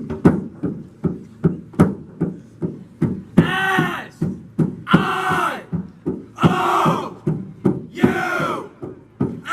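A team cheer: sharp, rhythmic knocks about two to three a second, with a group of voices shouting together four times, a held call about every second and a half.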